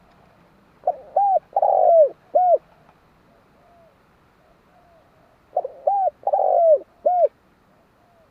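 Spotted dove cooing: two phrases about four seconds apart, each of four low hooting notes, two short, one long and falling, then a short falling one, with faint softer coos between the phrases.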